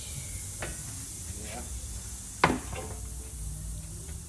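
Tire-shop work: two short sharp knocks, the second louder about two and a half seconds in, over a low steady hum, with a low drone joining near the end.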